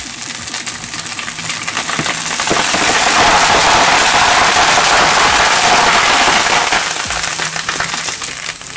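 Dense crackling rattle of thousands of small foam beads from a shredded cushion's filling spraying against the shredder's metal blades and housing. It builds up, is loud through the middle, and dies away near the end.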